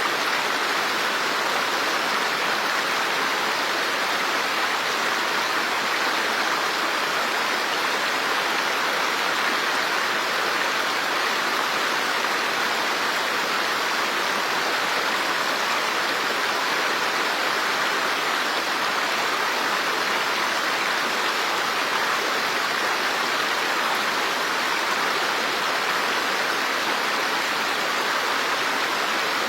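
Steady rushing of running water, like a stream or waterfall: an even, unbroken rush with no drips or splashes standing out.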